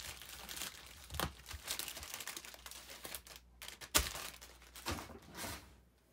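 Crinkling and rustling of a baby-wipe packet and wipe as glue is wiped off the fingers, with a few sharp knocks.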